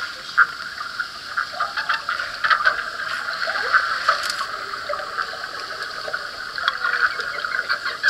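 Underwater river soundscape: a dense, steady run of short clicks and pulses, with a few faint rising and falling glides underneath.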